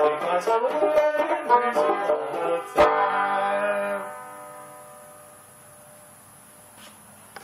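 Banjo played clawhammer style: a quick run of plucked notes ending on a final struck chord about three seconds in, which rings out and dies away.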